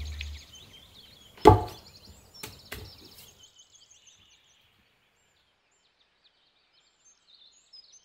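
One sharp thump about a second and a half in, followed by two lighter knocks a second later, over faint bird chirps.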